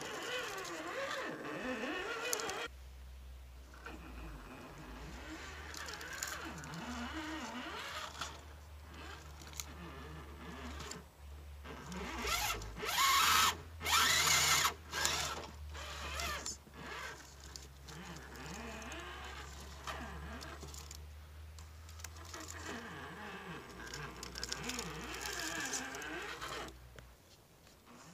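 Electric motor and gear drivetrain of an Axial UMG10 RC rock crawler whining as it climbs rocks, its pitch rising and falling with the throttle. There is a louder, harsher stretch about halfway through.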